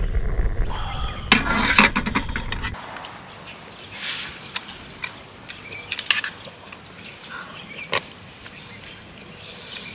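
Clinks and knocks of cookware and utensils being handled, a quick cluster of them early on and single ones after, over a low rushing noise that stops suddenly about three seconds in.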